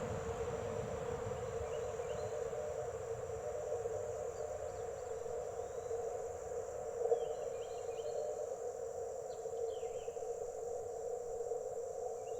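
Amateur-band receiver hiss from an Icom IC-705, narrowed by its CW filter to a steady low band of noise, while the band is searched for stations. Insects buzz steadily in the background, with a few faint chirps.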